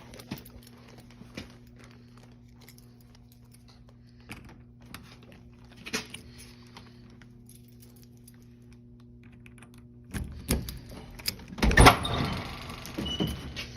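Keys jingling with small clicks at the lock, then the door being opened with a burst of rattling and knocks about ten seconds in, the loudest part.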